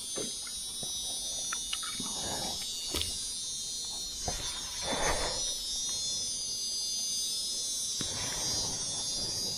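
Steady, high-pitched chorus of insects in the jungle, with a few brief rustles and clicks close by, about two and five seconds in.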